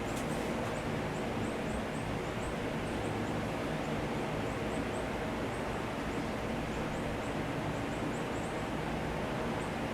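A steady mechanical hum running evenly, with many faint, short high chirps scattered through it.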